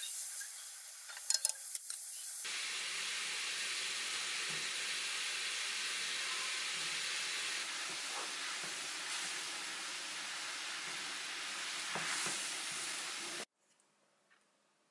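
Curry sauce bubbling and sizzling in a frying pan while a wooden spatula stirs it, with scattered light clicks of the utensil against the pan. Near the end it cuts off abruptly to near silence with a few faint taps.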